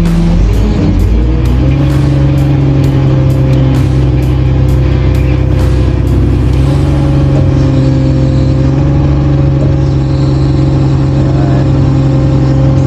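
A crane's engine revving up about a second in, held at steady raised revs, then dropping back near the end.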